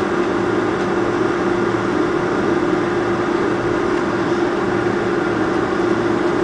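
Boeing 747-400's jet engines at taxi idle, heard from inside the cabin: a steady hum with a constant drone note.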